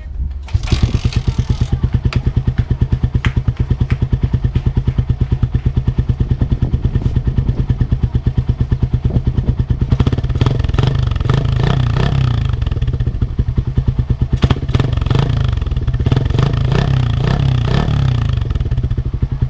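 Suzuki Raider motorcycle's single-cylinder four-stroke engine running on its stock exhaust with the catalytic converter still inside. It idles with an even beat, then is revved up and let fall back twice in the second half.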